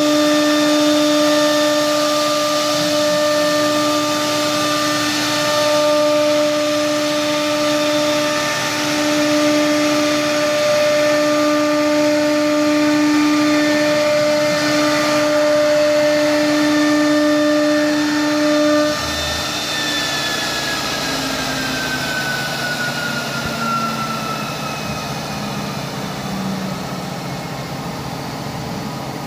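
Spindles of a three-spindle CNC router running with a steady whine over a rush of noise. About two-thirds of the way through, the sound drops and the whine slides down in pitch as the spindles spin down.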